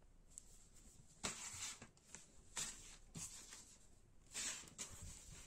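Quick-drying T-shirt fabric and its packaging rustling as hands handle the shirt, in four or five short bursts.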